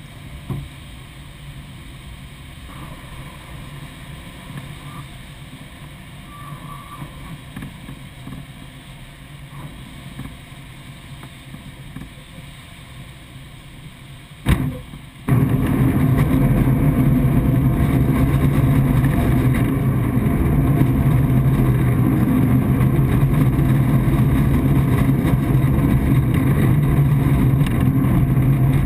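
Glider cockpit noise: a steady, moderate rush of airflow in flight, then, about halfway through, a sudden switch to a much louder steady rumble with a low hum as the Single Astir 77 moves along the runway.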